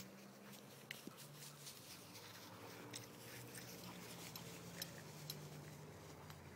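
Near silence: a faint low hum that comes and goes, with a few soft ticks.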